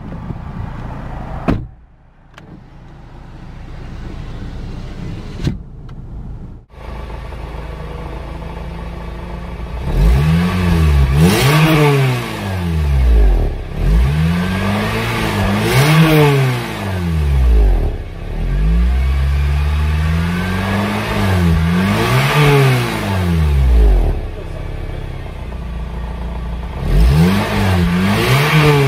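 2005 Honda Civic Type-R's 2.0-litre four-cylinder engine heard at the twin-tip exhaust, idling steadily at first. From about ten seconds in, the revs are raised and dropped again and again in quick blips of the throttle.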